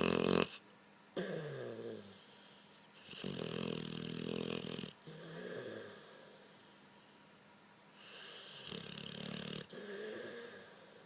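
Overweight blue-nose pit bull snoring loudly in its sleep: long rattling snoring breaths come every few seconds, with a loud one right at the start.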